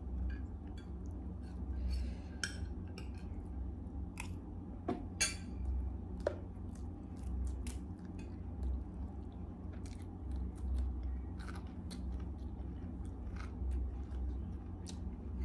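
Close-up eating sounds: a run of sharp clicks and crisp crunches from chewing and from sataw pods being picked apart by hand, over a low steady hum.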